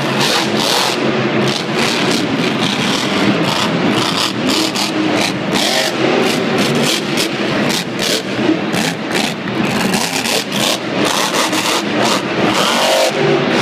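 Grave Digger monster truck's supercharged V8 engine revving hard, its revs rising and falling repeatedly, loud and crackling through a phone's microphone.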